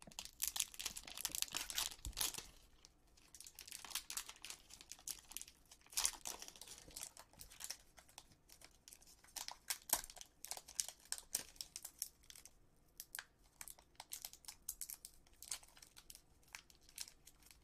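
Plastic wrapper of a baseball card fat pack crinkling and tearing as it is slowly and carefully opened by hand, in irregular spells of crackle with short pauses.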